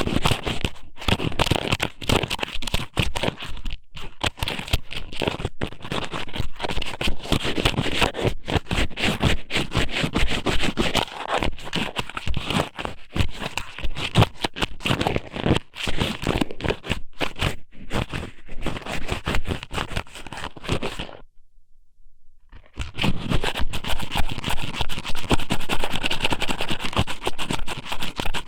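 Strips of raw squid (ika somen) pushed and rubbed inside a microphone's ear, making a close, dense crackling scrape. It stops for about a second and a half roughly three quarters of the way through, then starts again.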